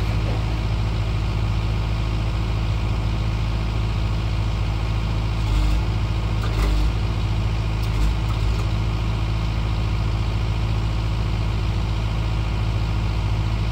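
Takeuchi TL10V2 compact track loader's diesel engine running steadily, with three brief low thuds about five and a half, six and a half and eight seconds in.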